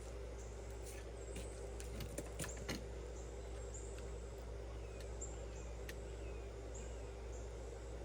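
Small birds chirping, with short high chirps repeating about once a second and a few falling calls, over a steady low hum and a few faint clicks.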